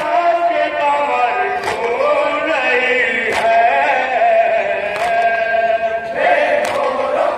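Men's voices chanting an Urdu nauha, a Shia lament, together without instruments, with the crowd's chest-beating (matam) striking in time about every second and a half.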